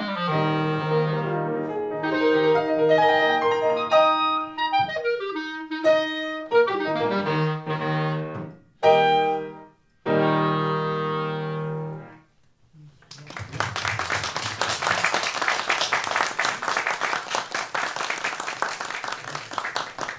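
Clarinet and grand piano playing the closing bars of a duo, with a brief break and a final held chord that ends about twelve seconds in. Then an audience applauds steadily.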